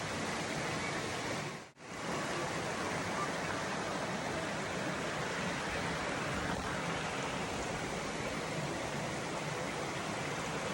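Waterfall and stream water rushing, a steady, even noise. It cuts out for an instant just under two seconds in.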